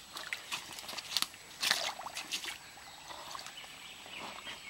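Hands digging in wet, sticky mud and handling a wooden log: a string of irregular soft squelches, scrapes and knocks, the loudest about two seconds in.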